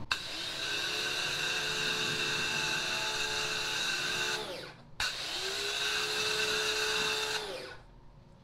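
Wholesun 1600 W electric pressure washer running twice while spraying detergent through a foam-cannon bottle. Each time the motor starts with a click and spins up to a steady whine, with spray hiss, then winds down. The first run lasts about four and a half seconds, the second nearly three.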